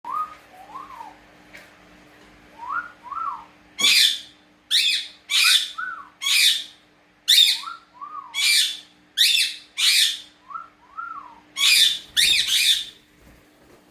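A person whistling short, rising-and-falling two-note phrases, answered by a pet parrot's loud, harsh squawks, about a dozen in quick runs starting about four seconds in.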